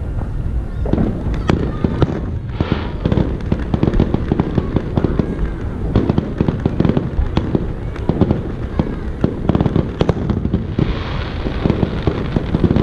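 Aerial fireworks display going off in a fast, dense run of bangs and crackles with no gaps between them.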